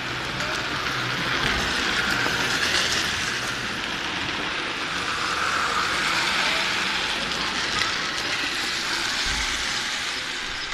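Drift trikes' small rear wheels sliding sideways on asphalt, a rolling scraping noise that swells twice as riders drift through the bend.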